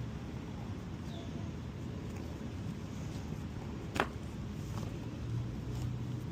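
Steady outdoor background rumble, with one sharp click about four seconds in and a low hum coming up near the end.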